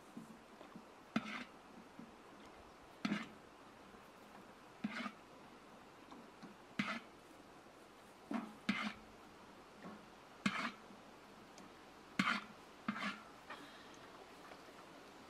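A ladle scooping broth from a large metal wok, scraping and clinking against the pan about every two seconds as each scoop is lifted and poured into a steel bowl.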